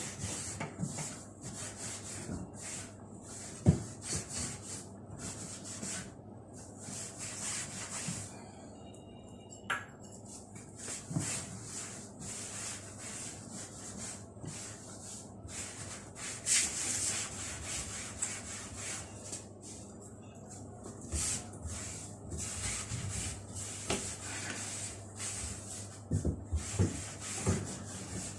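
Oiled cotton cloth wiped back and forth over wooden kitchen cabinet doors and drawers: repeated short rubbing strokes with brief pauses, and an occasional light knock of wood.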